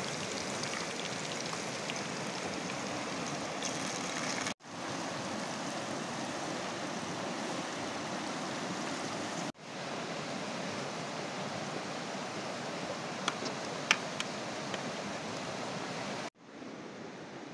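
Steady rush of a flowing stream. It breaks off abruptly and resumes three times, with a couple of sharp clicks about two-thirds of the way through.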